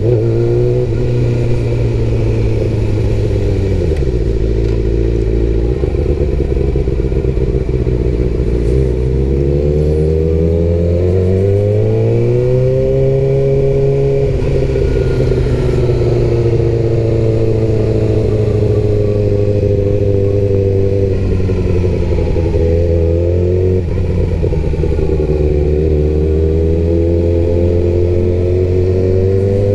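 Sport motorcycle's engine heard from the rider's seat while riding in town traffic. The revs drop about four seconds in, climb again between about ten and fourteen seconds, hold steady, dip around twenty-four seconds and rise near the end.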